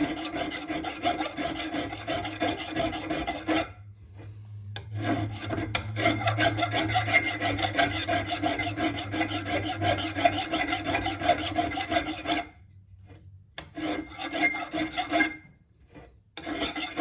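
Rough hand file rasping across solder at the muzzle end of a side-by-side shotgun's barrels, in runs of quick back-and-forth strokes broken by three short pauses. The solder is being filed down flush to the barrel faces.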